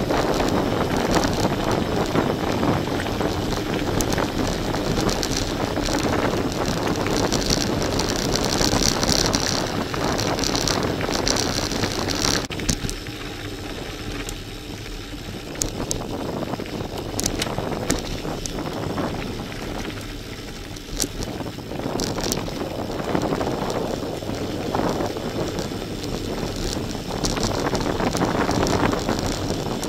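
Gravel bike's tyres rolling over a loose gravel track, with rattles and knocks from the bike and wind on the microphone. It quietens for several seconds around the middle, then picks up again.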